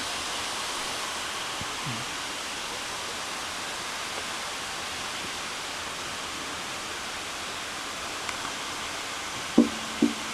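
Waterfall rushing steadily. Two short, louder sounds break in near the end.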